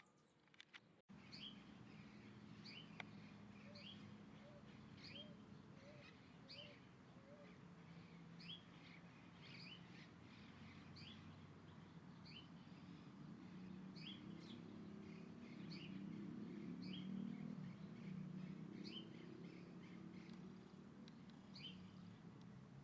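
A bird calling with short, high, upward-sliding chirps, repeated about once or twice a second, over a faint low rumble. A short run of five soft, lower notes comes in near the start.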